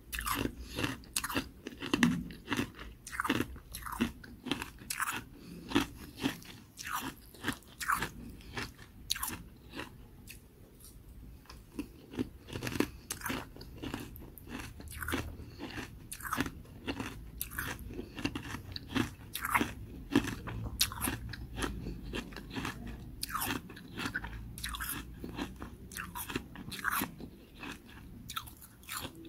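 Close-up crunching of carbonated ice being bitten and chewed: many sharp, irregular cracks, with a quieter spell about a third of the way in.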